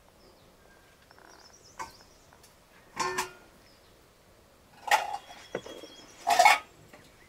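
Three short clatters, about two seconds apart, of kitchen things being handled and set on a shelf, the first with a brief metallic ring. Faint bird chirps in the quiet between them.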